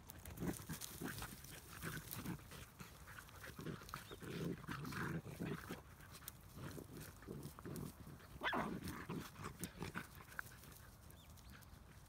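Labrador puppies making short vocal sounds in bursts as they play-wrestle, with one louder, higher cry about eight and a half seconds in. Dry grass rustles and crackles under them.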